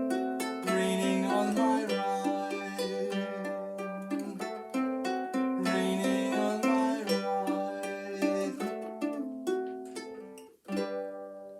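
Instrumental passage on a plucked string instrument, chords picked and strummed without singing. The playing breaks off about ten and a half seconds in, then one final chord rings and fades.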